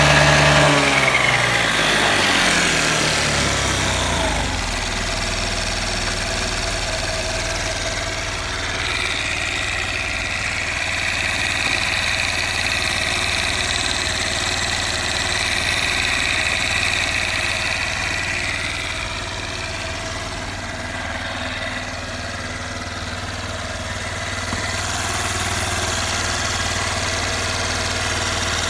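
Honda Benly Pro 50's eSP four-stroke single-cylinder engine dropping from revs back to idle in the first few seconds, then idling steadily. The seller describes it as free of abnormal noise.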